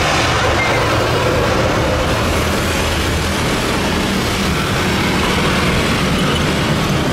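Loud, steady engine noise, its higher hiss thinning out gradually over several seconds.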